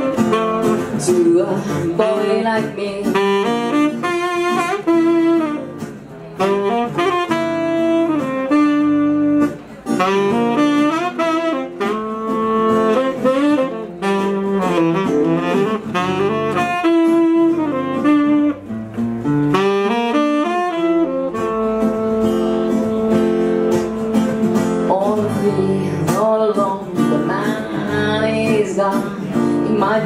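Saxophone playing a melody over acoustic guitar accompaniment in a live song.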